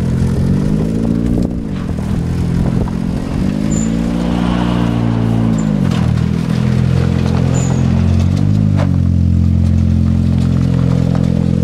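1991 Honda Civic's four-cylinder engine revving up and dropping back about three times while the car is driven, then running steadily near the end, with a few clatters from the car.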